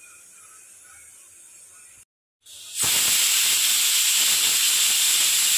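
Aluminium pressure cooker on a gas stove hissing steadily with escaping steam, a sign it is up to pressure while cooking dal. The hiss comes in suddenly a little under three seconds in, after a brief silence.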